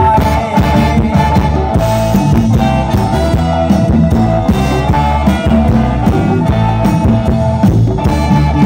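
Loud amplified ramwong dance music played by a live Thai combo band: a steady beat with bass and drums under held melody notes.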